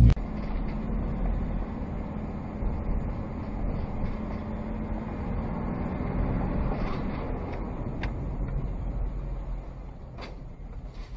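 Car driving through city traffic: steady engine and road noise, easing off slightly near the end, with two light clicks in the last few seconds.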